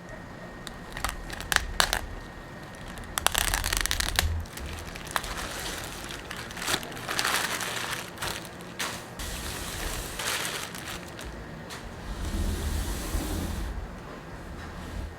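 Packaging being handled and opened by hand: irregular rustling and crinkling with scattered sharp clicks and taps, the loudest rustle about three seconds in.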